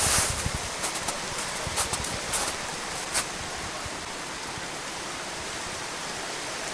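A steady, even outdoor hiss, with a few short knocks and crackles in the first three seconds.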